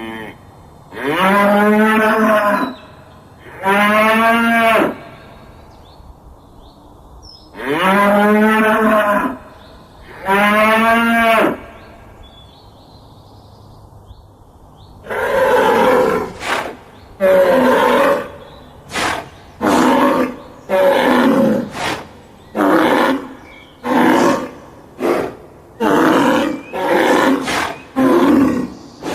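Bull bellowing: four long, drawn-out moos that rise and then fall in pitch, then after a pause of a few seconds a rapid run of over a dozen shorter, rougher calls.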